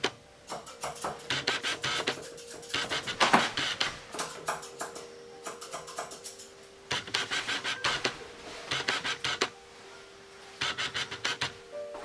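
Grooming shears snipping through a terrier's coat in quick runs of cuts, about six runs with short pauses between them, over a faint steady hum.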